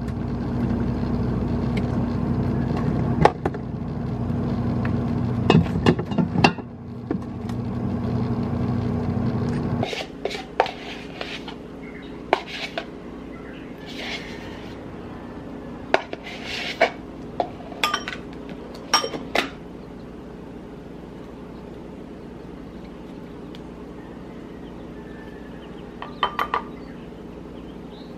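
Kitchen utensil sounds: a steady hum that cuts off abruptly about ten seconds in, then a spoon scraping and clinking against a ceramic bowl and a plastic yogurt tub in a run of sharp taps. Near the end come a few quick clicks of a knife slicing a banana.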